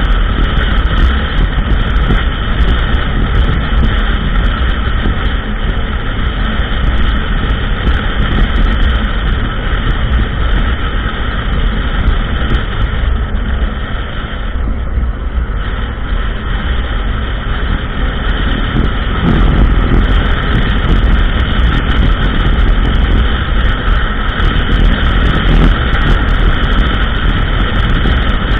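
ATV engine running steadily while riding a trail, easing off briefly about halfway through.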